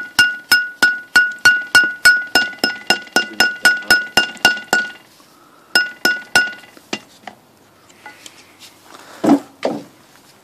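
Hammer tapping a race into place for the gearbox input shaft, metal on metal with a ringing tone. About three to four blows a second for some five seconds, then three more, then a single duller knock near the end.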